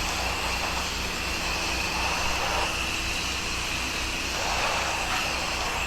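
An 8 GPM gas pressure washer running, its wand spraying a steady high-pressure hiss with a held whine over the engine's low throb.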